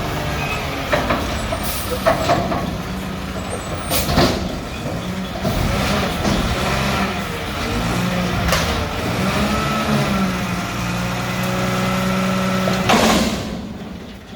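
Mack front-loader garbage truck's diesel engine running, its pitch rising and falling, with several short sharp noises over it; the longest, a second-long hiss, comes near the end.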